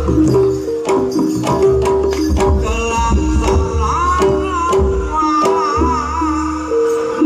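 Live Javanese gamelan music accompanying a singo barong dance: rapid kendang hand-drum strokes over steady pitched gong-chime notes, with a wavering higher melody line that thickens about three seconds in.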